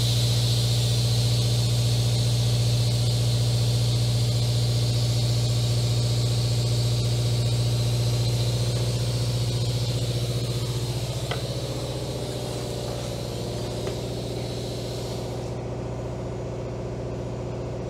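TIG welding a steel fuel-line fitting: a steady electrical hum with a high hiss from the arc. The sound tapers off from about halfway, and the arc cuts out near the end, leaving only the hum.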